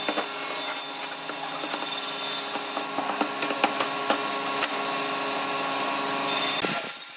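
Pipe clamps being tightened across a glued-up pine board panel: scattered clicks and knocks over a steady machine hum that stops shortly before the end.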